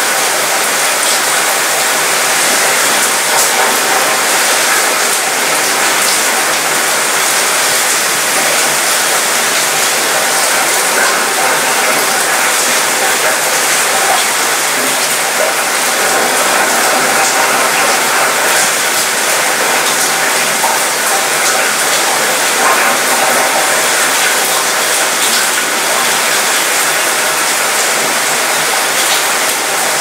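Gentle rain shower falling on a cruise ship's mostly metal balcony and railing: a steady hiss dotted with many small drop ticks that rattle around the metal.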